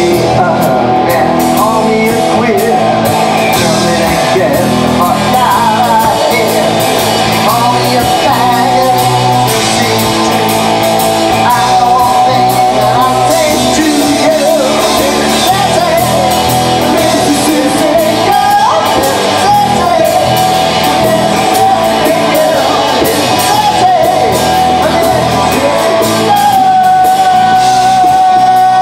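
Loud live glam rock band playing: electric guitars and drum kit, with a voice singing and shouting over them.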